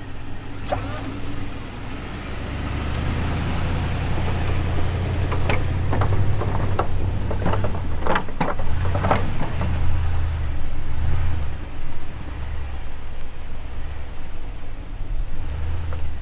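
Pickup truck engine running as the truck pushes snow with a front plow: a low rumble that builds over the first few seconds. A string of sharp scrapes and knocks comes in the middle, about five to ten seconds in.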